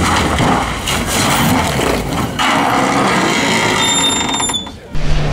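Rally car going off the road, its engine and the rush of the car sliding through grass and crops heard as a dense, noisy racket. The sound changes abruptly partway through and drops away shortly before the end.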